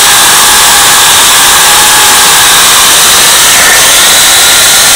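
Portland 14-inch electric chainsaw running under load, its chain cutting through a log: a loud, steady motor whine and chain rasp.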